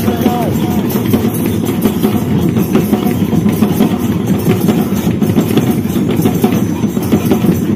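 Drums being beaten in a dense, rapid rhythm, loud and continuous.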